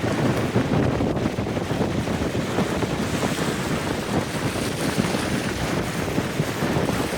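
Strong wind buffeting the microphone: a loud, rough, gusting rush that sits heavy in the low range.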